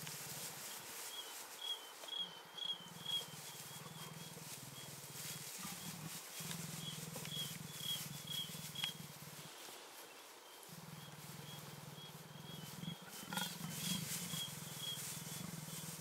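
Leopard growling, a low rumble that runs in long stretches with short pauses between breaths. A cricket chirps in quick repeated runs over it.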